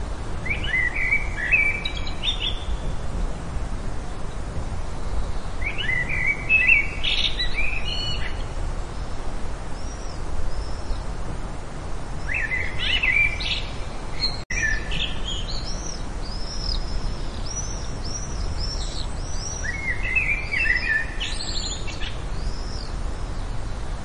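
Small birds singing: a short warbled phrase comes four times, several seconds apart, with thin, higher arched chirps from another bird in between, over a steady background hiss and rumble.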